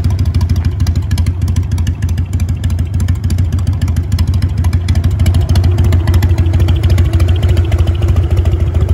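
1999 Harley-Davidson FXSTB Night Train's air-cooled V-twin, breathing through a Mikuni HSR carburettor and genuine Harley option mufflers, running steadily with a low, even exhaust pulse.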